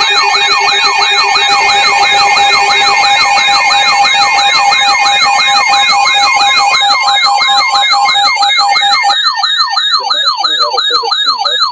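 Weather radio alert alarms sounding together: a siren-like tone sweeping down in pitch about four times a second over steady alert tones, which drop out near the end. The alarm announces an incoming severe thunderstorm warning.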